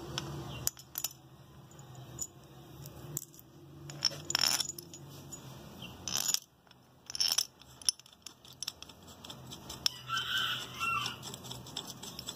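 Small steel cap screws clinking and clicking against metal as they are set into the diaphragm pump's piston cover and turned in by hand. The clicks are scattered and sharp, and the loudest clinks come at about four and a half, six and seven seconds in.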